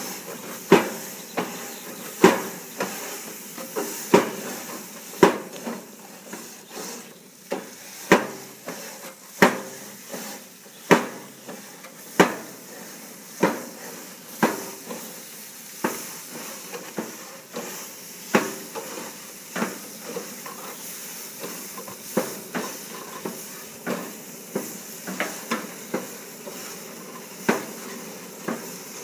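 Grill Daddy steam grill brush scrubbing hot grill grates: a steady hiss of steam under repeated sharp clacks and scrapes as the brush head is stroked across the metal bars, about one stroke every second or so.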